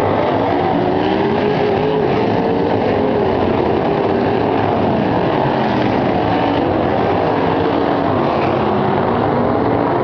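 A field of winged sprint cars racing on a dirt oval, many engines running hard at once, their pitches rising and falling as the cars pass.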